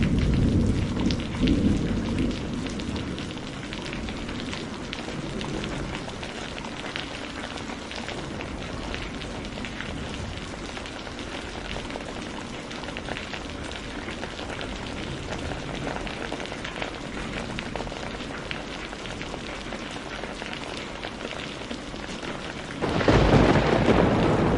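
Steady rain hissing on a surface, with a thunder rumble dying away over the first few seconds. A fresh, louder roll of thunder breaks in near the end.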